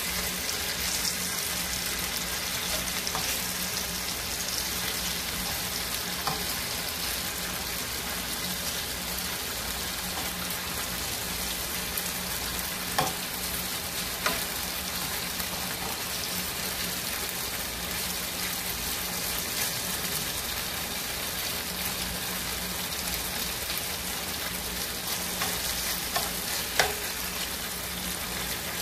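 Thin-sliced marinated beef sizzling as it sears in hot oil in a frying pan over medium-high heat, a steady hiss. A few sharp clicks of metal tongs against the pan.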